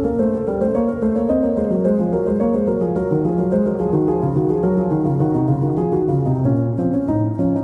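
Background music led by piano, a flowing line of quick notes over a steady lower part.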